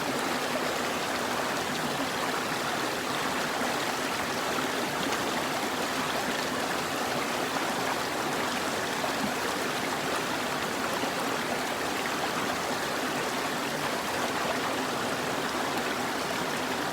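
River water flowing and rushing, a steady, unchanging noise.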